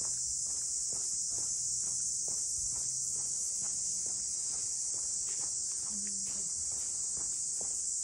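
Steady, high-pitched chorus of cicadas buzzing without a break, with faint footsteps on a paved lane about twice a second.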